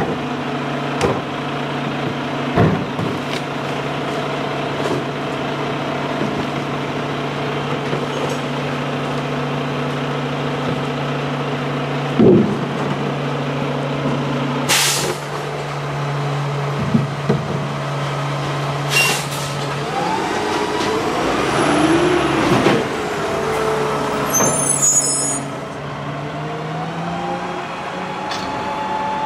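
Mack LR garbage truck engine idling steadily while plastic recycling tubs knock against the front-loader's carry can, with two short air-brake hisses about 15 and 19 seconds in. Then the engine revs and the hydraulic pump whines, rising in pitch as the forks lift the can over the cab.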